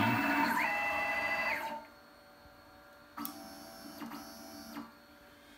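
Stepper motors of a 6040 CNC router whining as the machine jogs an axis. The first move is louder, its pitch ramping up and back down within about two seconds; a second, quieter move with a steady whine follows from about three to five seconds in.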